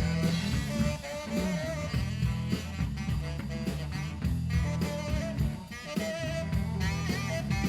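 Live blues band playing an instrumental break: a horn solo of held, bending melody notes over electric guitar and drums.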